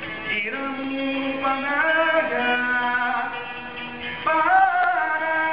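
Folk music with a slow, ornamented melody line of held, gliding notes; a new, louder phrase comes in about four seconds in.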